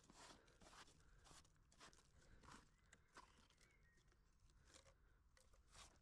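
Faint, irregular crunching and scraping of damp soil and small clods being dug out and pushed aside by hand, roughly one or two scoops a second.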